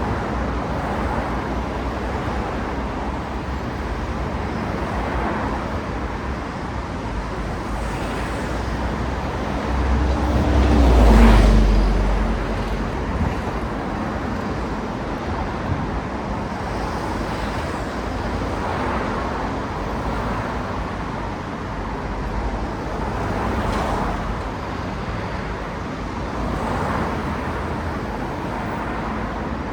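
Steady city road traffic, cars passing one after another. About a third of the way through, one vehicle passes close and is the loudest sound, its engine tone dropping in pitch as it goes by.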